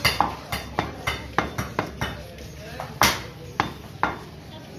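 Butcher's cleaver chopping beef on a wooden chopping block: a fast run of sharp chops, about four or five a second, some with a short metallic ring. After a pause comes the loudest blow about three seconds in, then two more chops.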